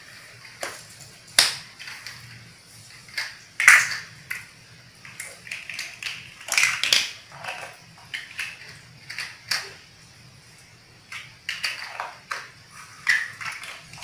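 Plastic toy building blocks clicking and clattering against each other and the tiled floor as they are picked through and snapped together: irregular sharp clicks, a few of them louder.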